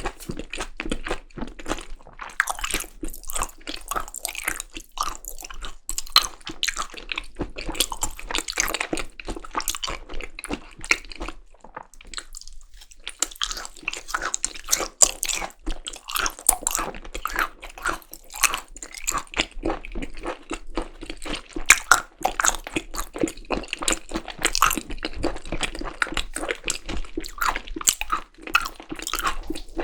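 Close-miked chewing and biting of yukhoe, Korean seasoned raw beef tartare: a dense run of wet clicks and mouth sounds, with a short pause about twelve seconds in.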